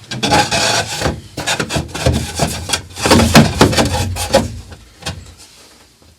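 Plywood panel being handled and fitted into place: a rapid, irregular run of wooden knocks and scraping, busiest about three seconds in, then dying away to a few faint ticks.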